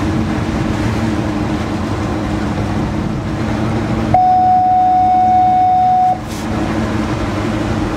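Fishing boat's engine running under way, with wind and water noise. About four seconds in, a loud steady tone sounds for about two seconds, then cuts off.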